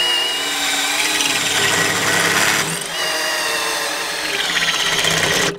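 Cordless DeWalt drill with a 3/8-inch bit boring through a metal plate, the motor running steadily under load. It stops suddenly near the end.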